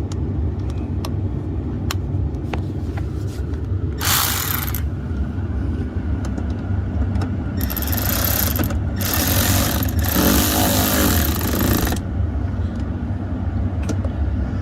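Idling engine of a 2012 Ford F150 giving a steady low rumble. Over it come three short bursts of a cordless power tool's hissing whir, a few seconds apart, as it runs the actuator's single mounting bolt back in, with a few light clicks between them.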